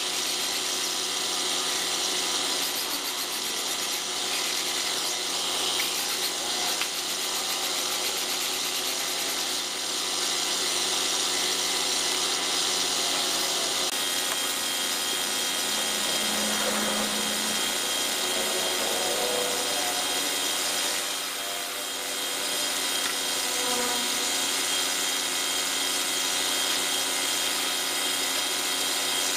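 Compressed-air paint spray gun hissing steadily as it sprays paint, over a steady motor hum.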